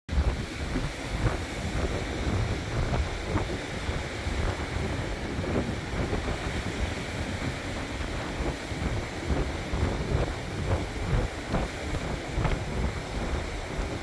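Moderate sea waves breaking and washing onto the shore, over a steady low rumble.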